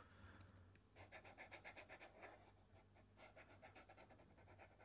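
Near silence: faint room tone with quick, light scratching strokes, several a second.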